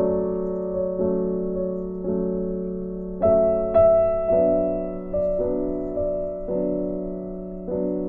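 Slow, soft background piano music: notes and chords struck about once a second, each ringing and fading before the next.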